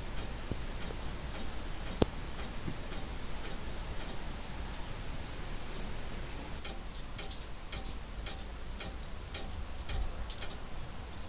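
LG OLED65B7V 65-inch OLED TV clicking over and over, about two sharp, high-pitched ticks a second, growing louder a little past halfway. This is the strange noise the set makes when it cannot be switched on: a power-on fault.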